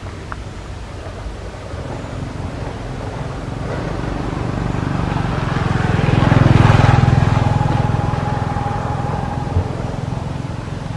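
A motor vehicle passing by, its low engine rumble growing louder to a peak about six to seven seconds in, then fading.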